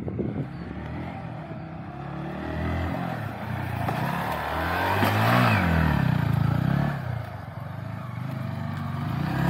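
Motorcycle engine running as the bike is ridden past. Its pitch rises to a peak about five seconds in, then falls, and climbs again near the end.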